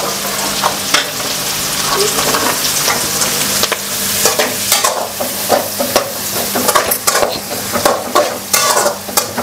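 Chopped onion frying with garlic and green chilli in butter and oil, sizzling steadily while it is stirred in the pan, with frequent short scrapes and taps of the stirring utensil against the pan. The onion is being sautéed until it turns glassy.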